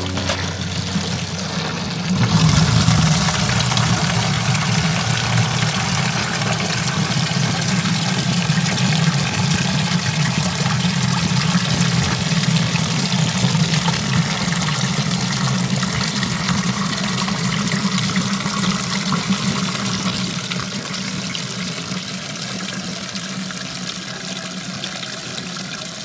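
Water running steadily in a strong stream; it gets louder about two seconds in and slowly eases off toward the end.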